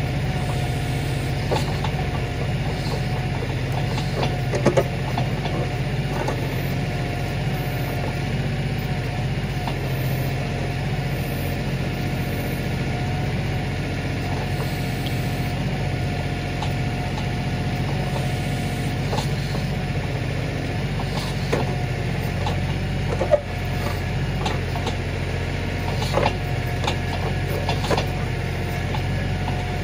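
Kioti DK4510 tractor's diesel engine running steadily, with a thin steady whine above its hum. Now and then there is a sharp knock or clank, the loudest about five seconds in and again past the twenty-second mark.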